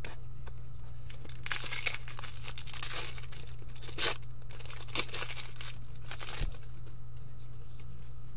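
Foil wrapper of a hockey trading card pack crinkling and tearing as it is opened, in several bursts, with cards being handled. A steady low electrical hum runs underneath.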